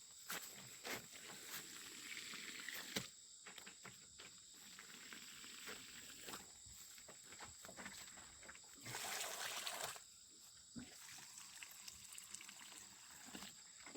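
Water trickling and splashing onto plants being watered, with a louder rush of water for about a second some nine seconds in. Night insects keep up a steady high trill throughout, and there are scattered small clicks.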